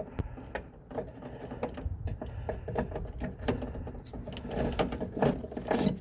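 Socket wrench working a rear shock absorber fastener: irregular runs of mechanical clicking with small metal knocks.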